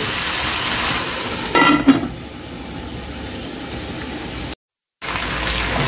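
Curry-coated cow foot sizzling in hot oil in an aluminium pot, then an aluminium lid clanks down onto the pot about two seconds in, and the sizzle carries on quieter under the lid. The sound cuts out for about half a second near the end.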